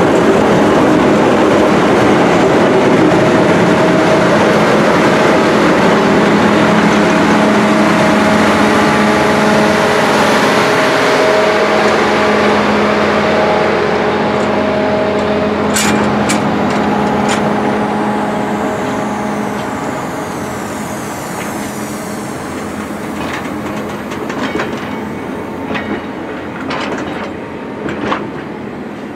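Passenger train rolling past: a steady diesel engine hum from the head end fades as the stainless-steel coaches go by, their wheels clicking over the rail joints with a few sharp clicks in the second half.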